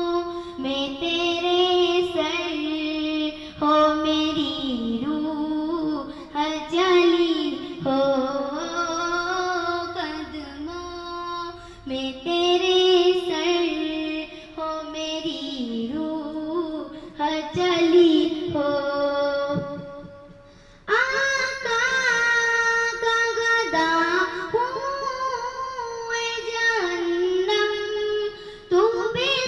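A child singing an Urdu naat solo in long, ornamented phrases. The voice drops away briefly about twenty seconds in, then comes back on a higher phrase.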